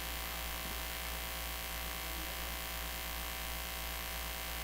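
Steady electrical mains hum with a faint hiss from the amplified sound system, left running between announcements.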